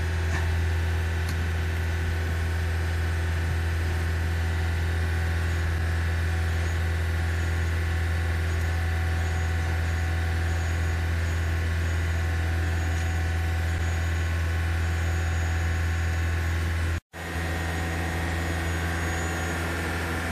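Toyota Camry Hybrid's 2.5-litre four-cylinder engine (A25A-FXS) running steadily in maintenance mode, held at speed with the accelerator pressed to the floor to circulate and bleed the coolant. It is heard from inside the cabin as a constant low hum. The sound cuts out for an instant about seventeen seconds in.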